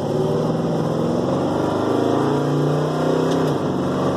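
Ford XC Falcon's 351 Cleveland V8 running under throttle, its note climbing slightly in pitch about two seconds in.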